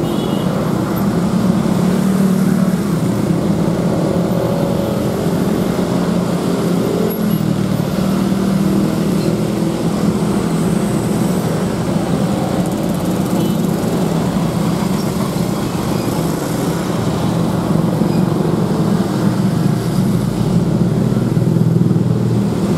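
Dense road traffic crawling past close by: the steady running of car, minibus and motorcycle engines. A heavier low rumble comes in near the end as a box truck passes.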